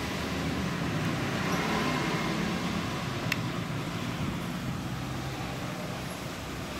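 A vehicle engine running steadily, with one sharp click about three seconds in.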